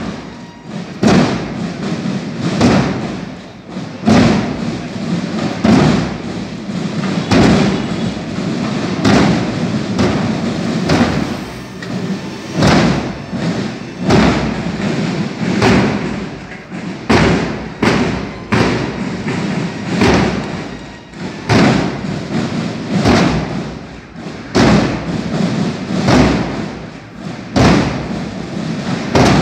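Marching band drums (bass drums and snares) playing a steady marching cadence: a heavy bass drum stroke about every second and a half, with lighter drum strokes between.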